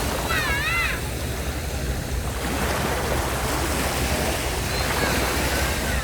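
Sea waves washing onto a sandy beach: a steady surf hiss with a low rumble. About half a second in, a brief wavering high-pitched call sounds over it, and a fainter one comes near the end.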